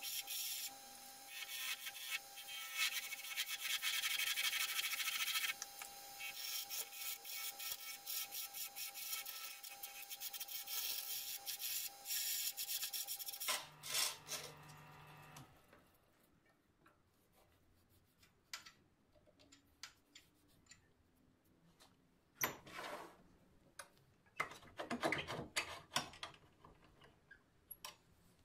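Wood lathe running while a turning tool cuts the spinning wooden blank: a dense scraping hiss over the motor's steady whine. About thirteen seconds in, the cutting and the whine stop, leaving scattered knocks and clatter of tools being handled.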